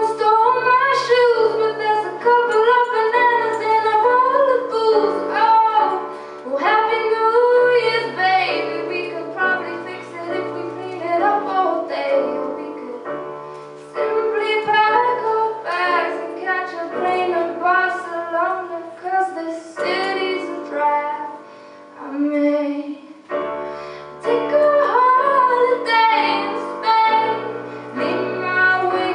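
A young female voice singing a slow solo song live, with held notes that waver slightly, over sustained piano accompaniment.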